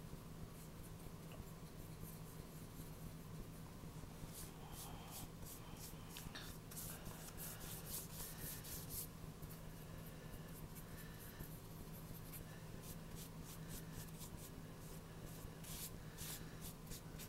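Faint watercolor brush strokes rubbing across paper, a run of short strokes starting about four seconds in, over a steady low hum.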